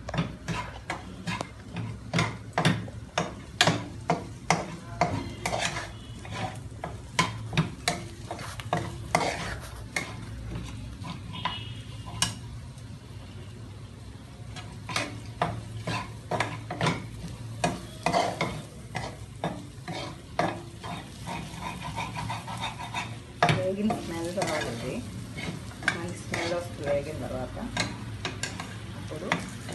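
A spatula scraping and knocking against a stainless-steel pan in repeated, irregular strokes as a browning spice mixture is stirred, with the mixture sizzling as it fries.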